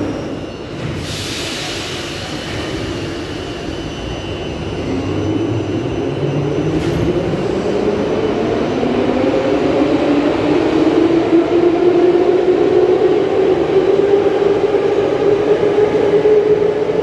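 Warsaw Metro Seria 81 train pulling out of a station. A short hiss of air comes about a second in, then the traction motors set in with a whine that rises steadily in pitch and grows louder as the train accelerates away.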